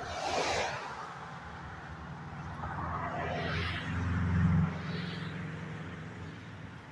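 A motor vehicle's engine drone swells to its loudest about four and a half seconds in, then fades. Two short whooshing gusts of noise come at the start and around three seconds in.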